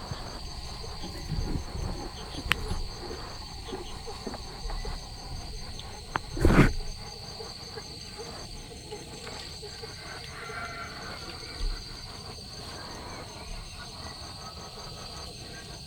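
Insects chirping steadily: a continuous high buzz with a fast, even pulsing chirp above it, over light rustling. A single loud thump about six and a half seconds in stands out, with a sharp click a few seconds before it.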